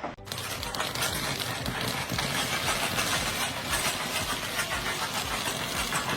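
An engine running steadily, with a rapid low pulsing.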